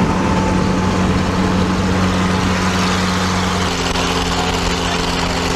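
Steady engine and road drone of cars driving at motorway speed, heard from inside a car cabin. About three and a half seconds in, the drone shifts to a different steady pitch.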